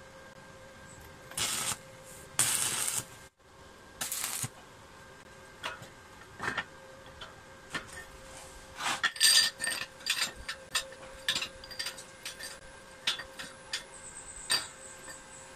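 Stick (arc) welder tack-welding steel tubing: three short crackling hisses within the first few seconds. After that come sharp metallic knocks and clinks as the steel bars are tapped and set into the frame, busiest about nine seconds in.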